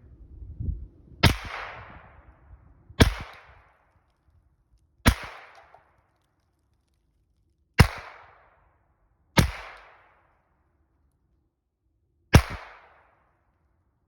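Henry AR-7 semi-automatic .22 Long Rifle firing six single shots at a deliberate pace, one every one and a half to three seconds. Each is a sharp crack with a short echo trailing off.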